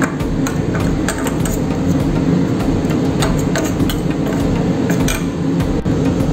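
A spoon clinking and scraping against a stainless steel bowl in irregular taps while green chillies are mashed into a flour-and-gravy paste, over a steady low hum.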